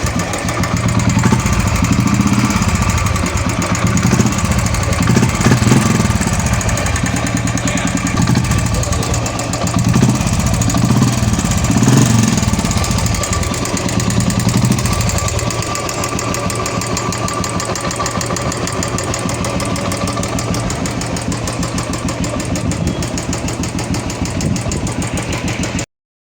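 Royal Enfield Classic 350 single-cylinder UCE engine running with a rapid tapping from the valve train: the noisy hydraulic tappet. The engine swells louder a few times in the first half, then settles to a steady idle, and the sound cuts off abruptly near the end.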